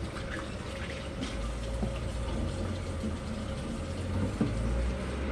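Water running steadily from a tap as hands are washed under it, with a few small splashes.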